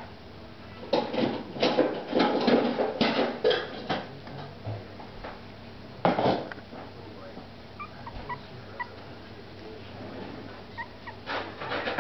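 Papillon puppies yipping and whimpering as they play-wrestle: a cluster of short yips in the first few seconds, another about six seconds in, then faint high squeaks.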